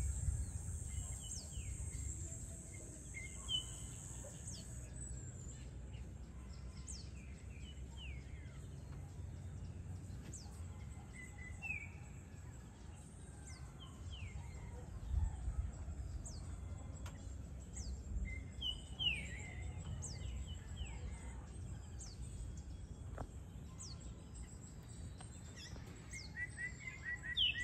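Evening birds chirping and calling in short scattered notes, some falling in pitch, with a cluster of chirps near the end, over a steady low rumble. A high, steady insect buzz dies away about five seconds in.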